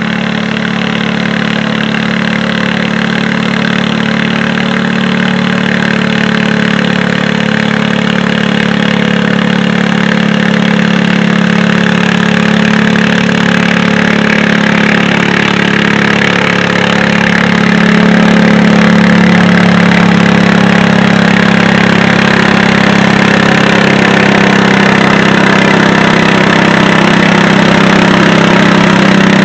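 Modified garden pulling tractor's engine running hard at steady revs as it drags a weight-transfer sled, a loud unbroken drone that grows louder partway through as the tractor comes closer.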